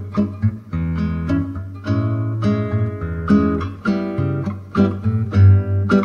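Background music: an acoustic guitar track with plucked and strummed chords over a bass line.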